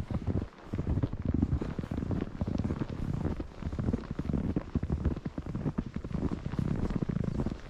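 Wind buffeting the microphone in uneven low rumbles, with irregular crunching thuds of footsteps trudging through deep snow.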